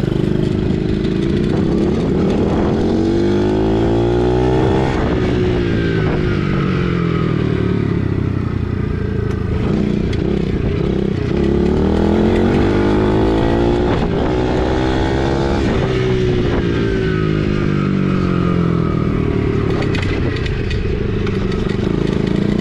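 Gas dirt bike engine under way, its pitch climbing and dropping back several times as the rider opens and eases the throttle.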